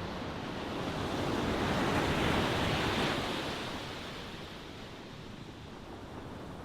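Ocean waves breaking and washing on a shore: one wave swells about a second in, peaks around two to three seconds, then ebbs into a softer wash.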